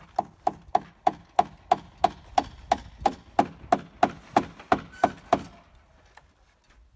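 A hammer driving a nail into wood: about seventeen quick, evenly spaced blows, about three a second, each with a short ringing note, stopping a little past five seconds in.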